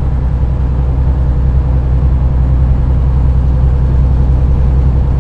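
Steady low drone of a semi truck's engine and road noise heard from inside the cab while driving.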